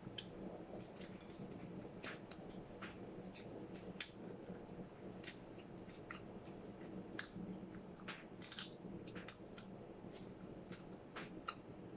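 Close-miked chewing of popcorn and french fries: irregular soft crunches and wet mouth clicks, a few sharper ones now and then, over a faint steady low hum.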